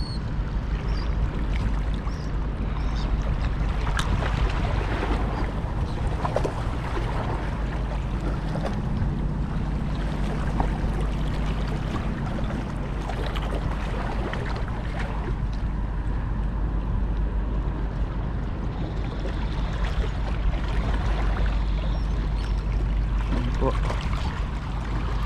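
Wind rumbling on the microphone over sea water washing against shoreline rocks, with scattered light clicks and knocks. A low hum swells and fades in the middle.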